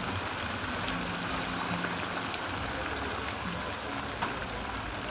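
Hot oil sizzling and crackling steadily in a commercial deep fryer as a batch of fries cooks in two wire baskets, with a sharper pop about four seconds in.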